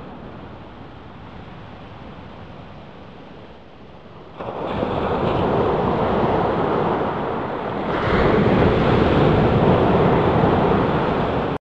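A steady rushing noise with no clear pitch or rhythm that swells suddenly about four seconds in, grows again about eight seconds in, then cuts off abruptly.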